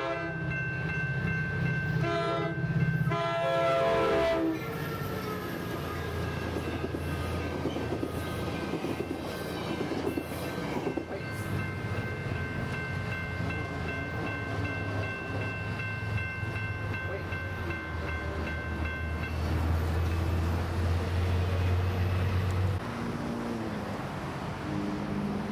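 Diesel passenger locomotive horn sounding a short blast and then a long one, after the end of a blast just before, typical of the end of a grade-crossing signal. The train then passes with its diesel engine running steadily and wheels on the rails, the engine sound dropping away about 23 seconds in.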